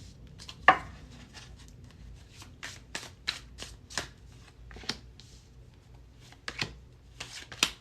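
Tarot cards being shuffled and handled: a string of short card slaps and taps at uneven spacing, with sharper slaps about a second in and again near the end.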